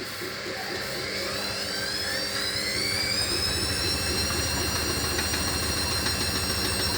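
Hoover HLW585DC washer-dryer spinning up on its final spin. The motor whine rises in pitch over the first few seconds and then holds steady at top speed, over a low rumble that grows as the drum speeds up.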